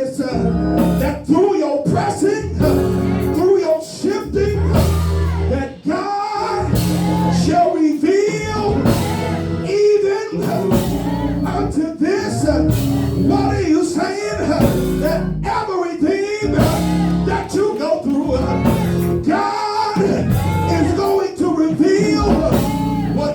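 Music with a voice singing over instrumental backing and a regular beat.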